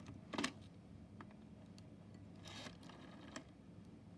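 Faint handling noise from a 1970s Princess rotary telephone being cleaned and examined: scattered light plastic clicks and a brief rubbing scrape about two and a half seconds in.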